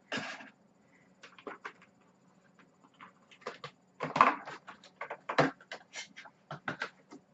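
Packing material rustling with a string of irregular clicks and crinkles as a vinyl figure is pulled out of it; the loudest rustling comes about four seconds in.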